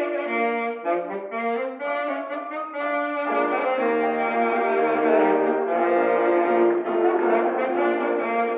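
Alto saxophone playing a melody of short and held notes, with piano accompaniment filling in underneath from about three seconds in.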